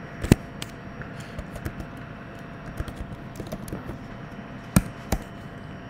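Typing on a computer keyboard: scattered keystrokes, with a sharper click just after the start and two more close together near the end.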